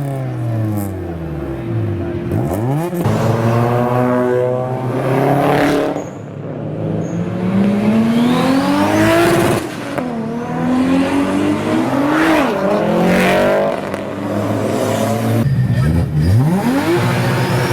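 Toyota Supra's 2JZ straight-six engine revving hard, its pitch climbing again and again and dropping sharply between pulls, with short cracks where it drops.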